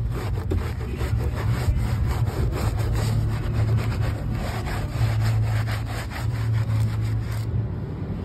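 A red mesh scrubber scrubbing a foam-covered carpet, a quick, even run of rubbing strokes over the wet pile, with a steady low hum underneath. The scrubbing stops about seven and a half seconds in.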